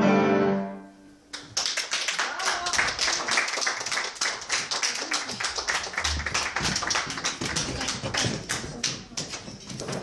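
A cello ensemble's closing chord rings out and fades away within the first second. About a second and a half in, audience applause starts and keeps going as dense, even clapping.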